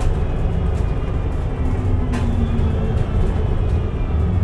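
Mercedes-Benz O405NH Midi bus with a Voith automatic gearbox running, a steady low rumble, with thin whining tones sliding slowly down in pitch in the second half.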